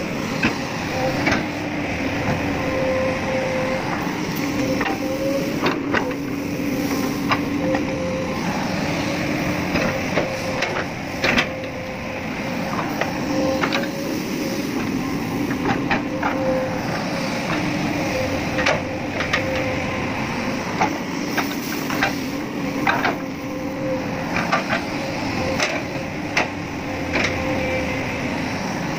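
A magnetic excavator working, its engine running steadily with a hum that comes and goes, and many sharp metallic clicks and knocks throughout.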